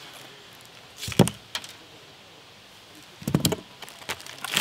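Plastic food packaging handled and set down on a wooden table: short bursts of crinkling and clatter about a second in, again past three seconds, and near the end.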